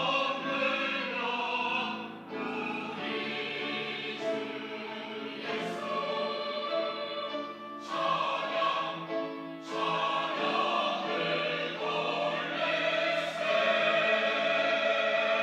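Church choir singing a Sunday anthem in sustained chords, phrase by phrase with short breaks between, ending on a long held chord.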